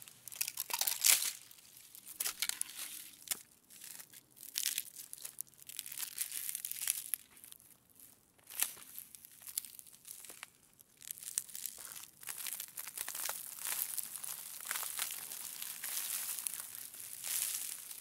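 Ice cracking slowly: a dense, irregular run of crackles and sharp snaps, with the loudest snap about a second in and a few brief lulls between bursts.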